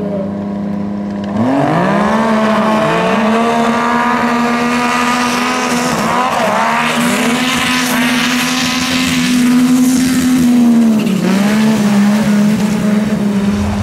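Several turbocharged racing snowmobiles launch and climb the hill at full throttle. Their engines jump up in pitch about a second in and hold high and steady, with a few brief dips. A hiss from the tracks and snow builds as they pass.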